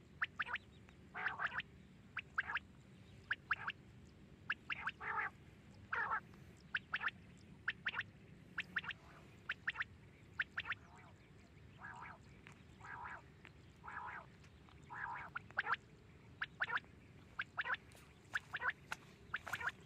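Quail calling: short, sharp calls repeated many times, often in quick pairs and threes, with a run of lower, rougher calls in the middle.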